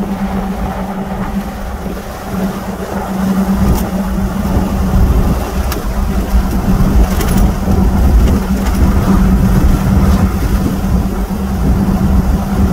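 Road noise inside the cabin of a moving truck: a low engine and tyre rumble with a steady drone, getting louder from about four seconds in.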